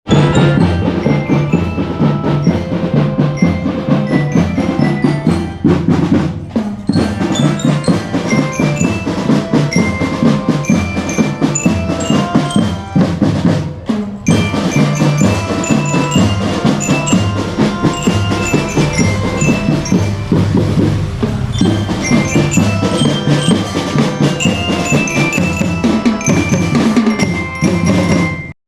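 A children's marching drum band playing: a glockenspiel-like lyra melody over a steady beat of snare and bass drums, briefly dropping off about halfway through.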